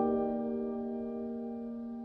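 Background music: a single sustained keyboard chord ringing and slowly fading.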